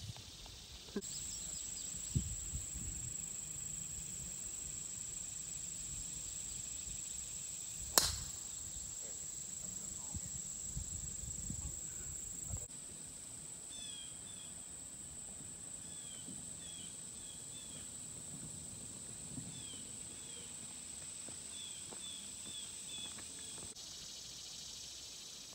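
One sharp crack of a golf club striking the ball on a tee shot about eight seconds in, over a steady high drone of summer insects. In the second half a bird chirps repeatedly in short falling notes.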